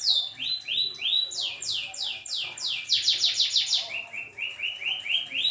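A domestic canary singing in long rolling tours of repeated notes. The notes come about four or five a second, quicken into a faster roll around the middle, then change to a lower, rising series of notes.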